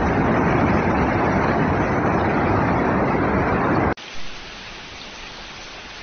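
Floodwater rushing in a torrent down a street, a loud steady rush; about four seconds in it cuts off suddenly to a quieter, thinner hiss of flowing water.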